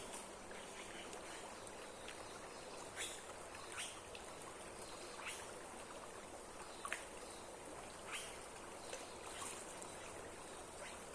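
Steady rush of water from a waterfall or stream, with short sharp ticks or splashes scattered irregularly over it, roughly one a second.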